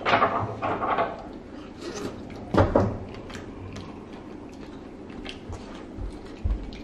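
Metal tongs clicking and knocking against a metal griddle tray and a plate as grilled rice cakes are picked up, with a sharper knock about two and a half seconds in.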